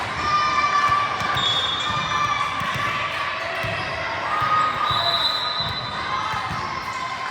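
Gymnasium during volleyball play: balls bouncing and being struck with repeated thuds and smacks, sneakers squeaking on the court floor, and voices talking.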